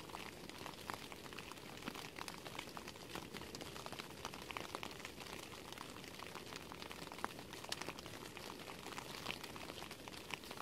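Faint steady hiss of a gas canister stove heating a pot of water that is just short of the boil, with many light, irregular ticks.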